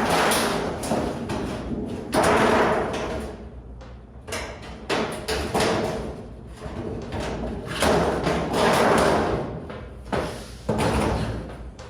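Galvanized sheet steel being handled and worked into S-channel: about five bursts of rattling, flexing and scraping metal, with thumps.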